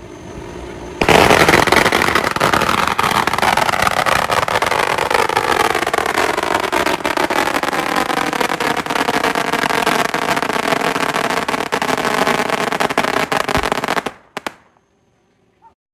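A long string of firecrackers going off in a rapid, continuous crackle of many sharp bangs, starting about a second in and stopping abruptly near the end.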